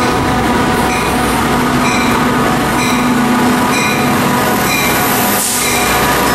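Tri-Rail F40PHL-2 diesel locomotive arriving at a platform, its bell ringing about once a second over the running diesel engine. A short hiss comes near the end.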